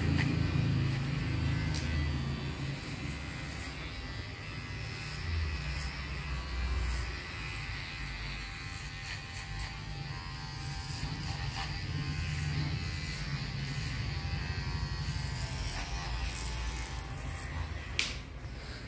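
Cordless hair clipper buzzing steadily as it cuts hair around the ears and neck. A sharp click comes near the end.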